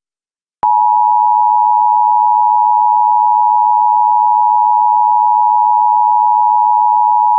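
Emergency broadcast attention signal: the two-tone alert of 853 and 960 Hz sounded together. It comes on about half a second in and holds steady and unbroken.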